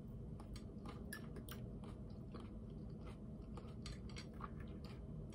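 Close-up chewing of a mouthful of cucumber and tomato salad, with many small crisp clicks scattered through it.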